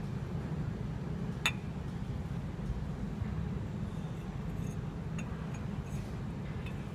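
Two ceramic mugs touching as they are turned together in the hand: one sharp clink about a second and a half in, then a few faint ticks, over a steady low hum.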